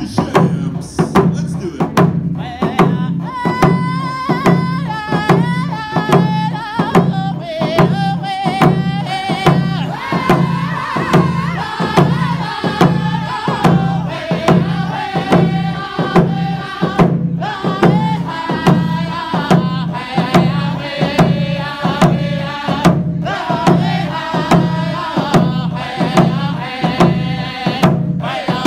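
Round dance song: a group of singers beating hide hand drums in a steady, even beat, with their singing coming in about two to three seconds in over the drums.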